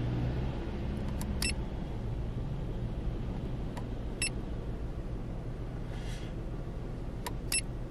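Small Skoda's engine idling at about 800 rpm, heard from inside the car as a steady low hum. Three pairs of short sharp clicks come from the dash-mounted OBD display's button being tapped to step through its screens.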